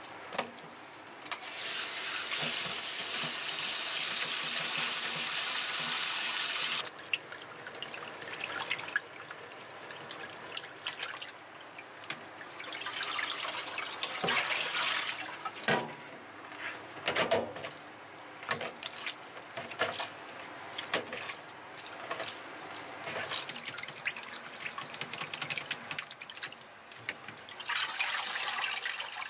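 Water from a tap running into a stainless steel sink for about five seconds, then stopping. After that come irregular wet rubbing and splashing as gloved hands knead and rinse raw pig intestines in a plastic colander. The tap runs again near the end.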